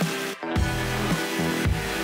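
Electronic background music with a steady beat. It drops out briefly about half a second in.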